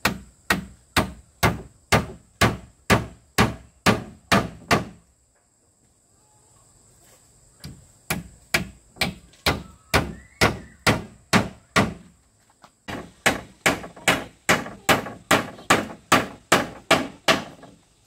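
Rhythmic blows of a hand tool on a workpiece, about two a second, in three runs broken by short pauses about five and twelve seconds in, typical of hammering or chopping while building shelves.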